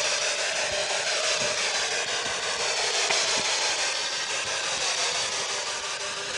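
Steady static hiss from a handheld spirit box radio sweeping through stations, with faint wavering tones in the noise.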